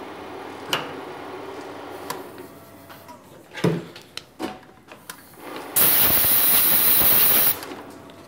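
Small metal lathe running in reverse to back a threading die off a freshly threaded M5 stud, falling quiet about two and a half seconds in. A few clicks and a knock follow as the tailstock die holder is taken off, then a loud steady hiss lasts about a second and a half near the end.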